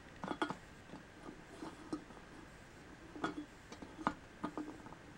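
Light plastic clicks and taps of small Littlest Pet Shop toy figures being handled and set down in a red plastic playset bowl, a few scattered knocks spread across the moment.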